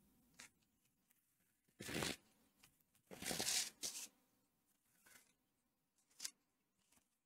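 Knitting needles working chunky yarn: soft, scratchy rustles as the yarn is drawn through the stitches, in three short bursts between about two and four seconds in, with a couple of faint ticks from the needles.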